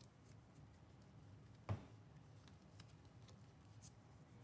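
Near silence: quiet room tone, broken by one short click just under halfway through and a few fainter ticks.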